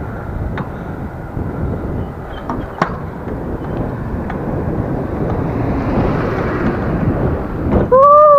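Wind buffeting the microphone of a bicycle ridden along an asphalt road, with steady rumbling road noise and a few light clicks. About 8 seconds in, a brief loud tone rises and then falls in pitch.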